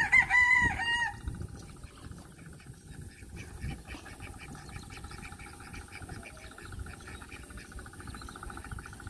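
Domestic ducks quacking, a few short calls in the first second. After that a steady, fast-pulsed buzz carries on quietly underneath.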